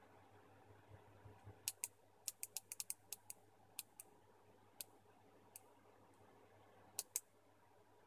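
Small sharp clicks and taps, irregular and in a quick cluster a couple of seconds in, then sparser. They come from the brass contacts, spring and plastic housing of an opened washing-machine pressure switch being prodded and moved by hand. A faint low hum lies underneath.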